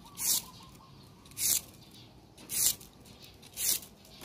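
Thin bamboo strips pulled upward through folded sandpaper: four short scraping swishes about a second apart, one pull each, as the strips are sanded smooth.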